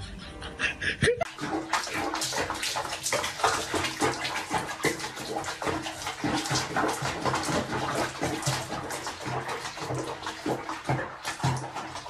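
Bath water splashing and sloshing in a small basin around a cat, beginning about a second in.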